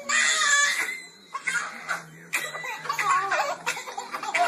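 Toddlers laughing in a string of high-pitched bursts, with a loud burst at the start.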